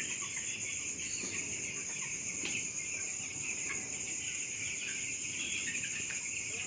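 A flock of poultry-farm chickens: a dense, continuous mass of chirping and clucking, over a steady high-pitched ring.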